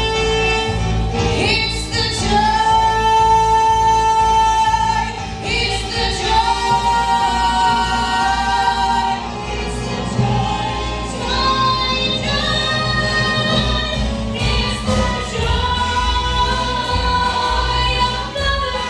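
A group of voices singing a musical-theatre song in long held notes over an instrumental accompaniment.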